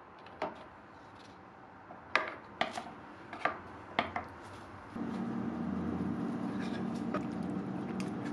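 A wooden lid set onto a stainless steel hot-pot pan: a few sharp knocks of wood on metal about two to four seconds in. From about five seconds, a steady low hum of the pot cooking on its burner, with a few light clinks of a ladle.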